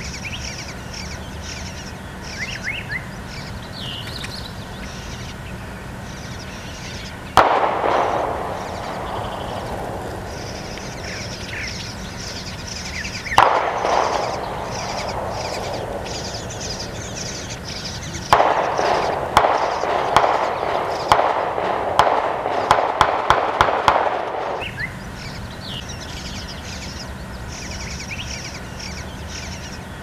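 Small birds chirping in the background, broken by three bouts of sudden loud noise. Single bursts come about seven and thirteen seconds in, each fading over a couple of seconds. From about eighteen to twenty-five seconds there is a rapid run of sharp knocks, several a second.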